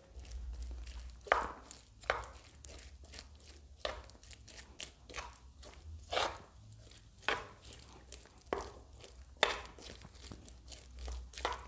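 Spoon stirring sliced onions through thick besan batter in a wooden bowl: soft, irregular scrapes and clicks, roughly one a second, as the onions are coated.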